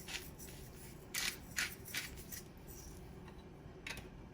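Pepper mill being twisted over a bowl, a run of short grinding rasps about a third of a second apart, then a pause and one more near the end.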